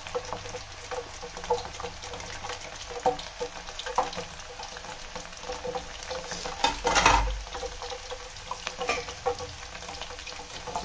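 Fresh banana slices deep-frying in hot oil in a steel pan, bubbling and crackling steadily with many small pops. About seven seconds in comes a louder rush of sizzling as the chips are stirred.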